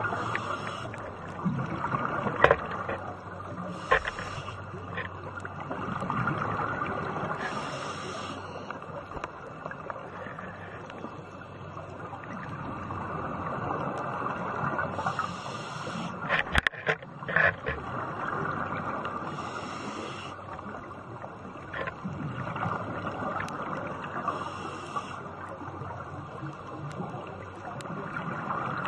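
Underwater sound of a scuba diver breathing through a regulator: a hiss and rush of bubbles that comes back about every four to five seconds. A few sharp clicks or knocks come through, a cluster of them about two-thirds of the way through.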